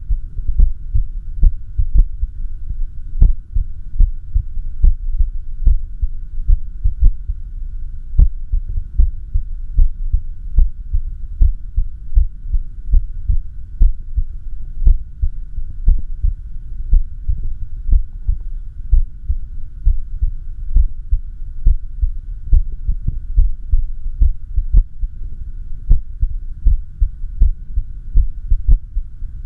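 Heart sounds in an irregular rhythm: a person's heart in arrhythmia, low thuds coming at uneven intervals over a steady hum.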